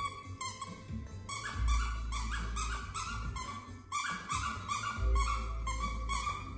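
A whippet chewing a squeaky dog toy. The toy gives quick runs of short, rising squeaks, about two a second, with a brief pause about four seconds in.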